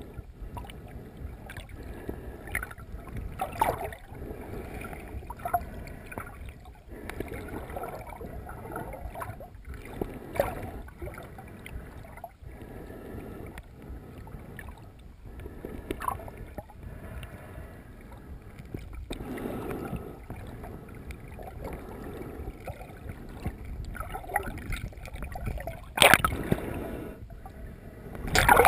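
Muffled water sound heard through an underwater camera housing: a steady low rumble with irregular swishes of water movement every second or two. A sharp louder swish comes near the end, then louder splashing as the camera nears the surface.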